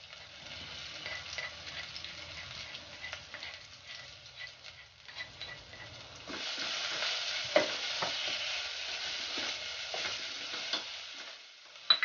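Ground turmeric spice paste with lemongrass and galangal sizzling in oil in a small metal pot while a spatula stirs and scrapes it, with light clicks of the spatula against the pot. The sizzling grows louder about six seconds in, and a sharp clack sounds near the end.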